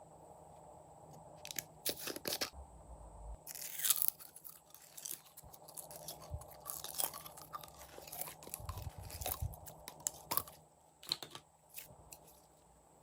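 Slime being squeezed and kneaded by hand: irregular sticky crackles and pops starting about a second and a half in.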